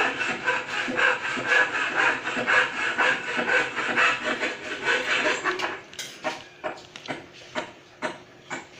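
Close-up eating noises of a metal spoon in a plastic bowl of rice porridge: a dense rasping scrape for about six seconds, then a run of short sharp clicks, two or three a second.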